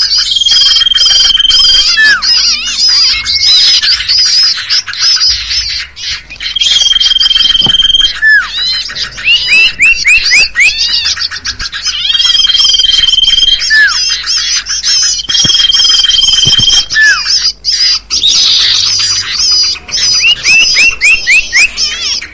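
Bird-lure recording of common iora (sirtu/cipoh) calls: a dense, loud chorus of high chattering, with a long steady whistle about five times and runs of quick rising notes in between.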